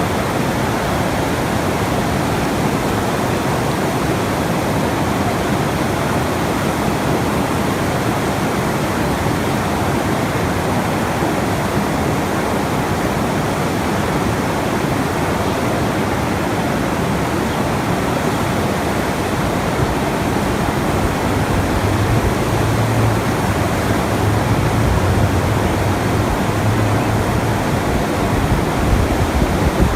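Steady rushing water noise, as on a sleep nature-sounds track, with a low rumble coming in and swelling from about two-thirds of the way through.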